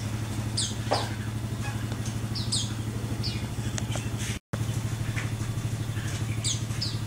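A motorcycle engine idling steadily, with short, high bird chirps repeated over it. The sound drops out completely for an instant a little past the middle.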